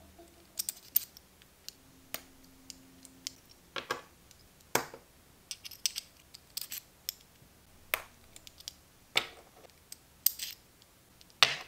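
Small metal model-engine parts clicking and tapping together as a piston pin is fitted through a piston and connecting rod by hand: scattered sharp clicks, the loudest near the end.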